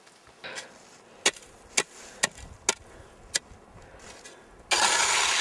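A small shovel chopping and scooping hard snow to fill a pot for melting: five sharp knocks about half a second apart, then a loud scraping rush near the end.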